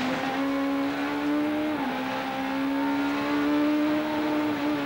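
Rally car engine heard from inside the cockpit, running hard at high, nearly steady revs. Its pitch dips briefly about two seconds in, then climbs back.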